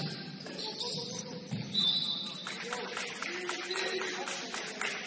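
Sounds of a basketball game on a gym court: players' voices, a ball thudding about one and a half seconds in, a short sneaker squeak just after, and a patter of quick knocks from shoes and the ball.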